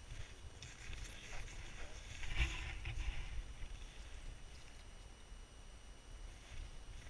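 Wind buffeting the microphone as a fluctuating low rumble, with scattered crunching and rustling that is densest in the first half and loudest about two and a half seconds in.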